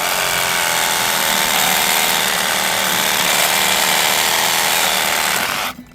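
Sawzall reciprocating saw with a cast iron blade cutting through a cast iron sewer pipe, running steadily at full speed with a wavering whine, then stopping abruptly near the end.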